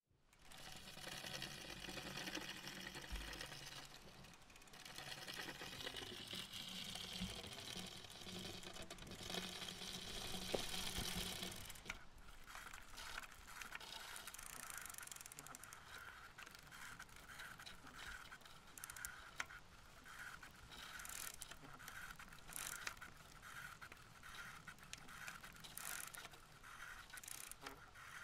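A bicycle being ridden on a paved street. For about the first twelve seconds there is steady road and wind noise. After that the bike's drivetrain clicks and rattles in a steady repeating pulse, a little more than once a second.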